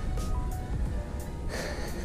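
Background music: short, steady held notes over a low bed.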